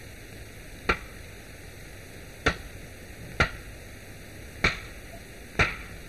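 Five sharp, irregularly spaced blows about a second apart, a hand tool splitting chair-leg billets out of hard wood, over the steady hiss of an old film soundtrack.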